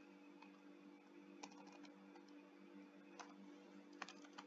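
Faint, isolated computer keyboard and mouse clicks over a low steady hum: a click about a second and a half in, another past three seconds, and a couple near the end.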